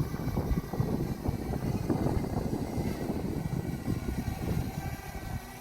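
Strong, gusty wind buffeting the microphone: a rough, rumbling rush that rises and falls unevenly.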